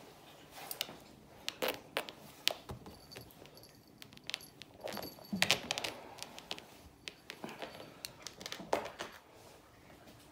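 A cat playing at close range against a chair: irregular rustling, scratching and light knocks, busiest about five seconds in, with faint metallic tinkles from its collar now and then.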